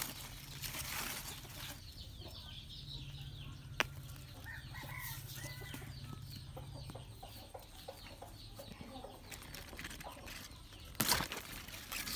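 Chickens clucking faintly in the background while radishes are handled and pulled from loose soil by hand. There is a sharp click a little under four seconds in and a louder brief rustle about eleven seconds in.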